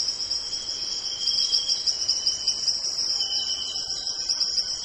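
Insects, crickets by the sound of it, trilling steadily in a continuous high-pitched chorus, with a second, lower trill that fades in and out.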